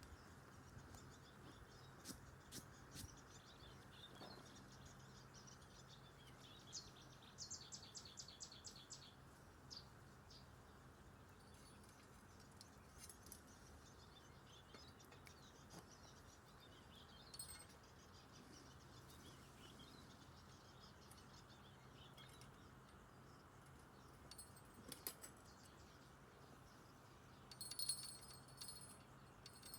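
Faint birdsong over a low steady hum, then near the end a small fishing-rod bell jingles for a couple of seconds, the sign of a fish taking the bait.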